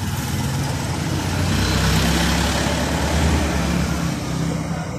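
A motor vehicle passing close by, its engine rumble and road noise swelling to a peak about two to three seconds in, then fading.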